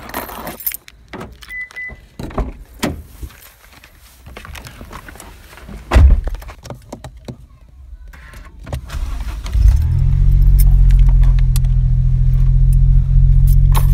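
Car keys jangling, a car door shutting with a heavy thunk about six seconds in, then the Suzuki car's engine starting about nine and a half seconds in and idling steadily.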